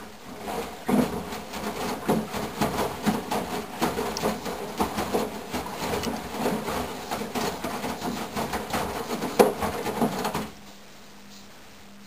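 Candy GrandO Plus front-loading washing machine tumbling wet clothes in its first rinse: the drum turns with irregular sloshing and thudding for about ten seconds, then stops abruptly near the end, leaving a faint steady hum.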